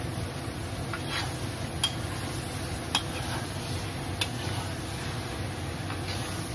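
A spatula stir-frying shrimp with chilies and onions in a metal wok, over a steady sizzle of frying. It clinks sharply against the pan three times.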